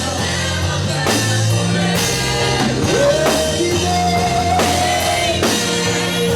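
Live gospel worship band playing with drum kit, bass and guitar, a held melody note sliding up into a long tone about three seconds in.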